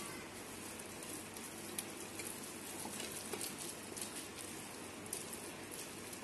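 Spatula stirring a thick spinach-and-oats idli batter with curd in a glass bowl: a soft, steady wet crackle with a few light taps of the spatula against the glass.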